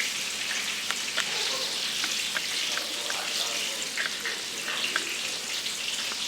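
Coated chicken pieces frying in a pan, a steady sizzle with scattered small pops and crackles, browning toward golden brown.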